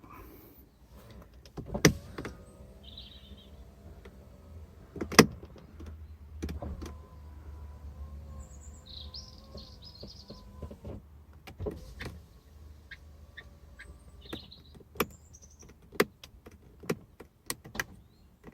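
Power window motor of a Mk5 VW Jetta door running the glass down and back up with a steady whine, with sharp clicks of the new window switch being pressed through its manual and two-click automatic positions. A quick run of switch clicks comes near the end.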